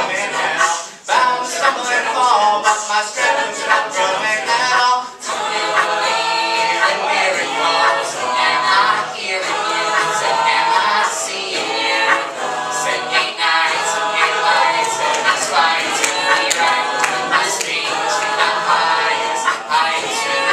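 Mixed-voice a cappella group of male and female singers performing in harmony, with no instruments.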